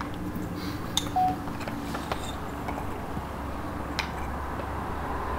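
Wooden puzzle pieces being placed on a wooden game board: a few sharp clicks and taps, the clearest about a second in and near four seconds, over a steady low hum.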